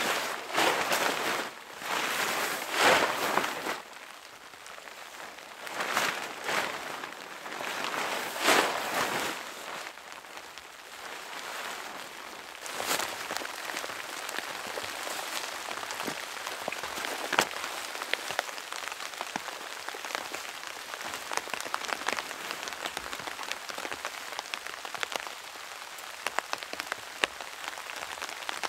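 Tent fabric swishing and rustling in loud bursts as the tent is shaken out and spread on the ground, over roughly the first nine seconds. After that, steady rain pattering with many fine drop ticks.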